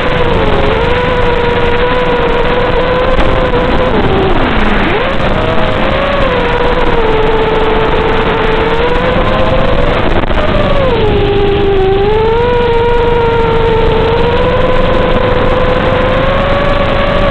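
FPV quadcopter's four 2204 2300KV brushless motors on a 4S battery whining steadily. The pitch drops sharply about four to five seconds in and climbs back as the throttle is cut and punched. It dips again around eleven to twelve seconds, then rises slowly near the end.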